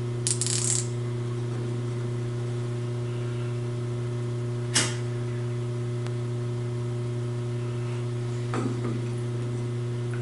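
Steady electrical hum, a low drone with a couple of fainter steady tones above it, as of a running motor. A large outside micrometer being handled against the steel workpiece adds a short rustle just after the start and a single sharp click about five seconds in.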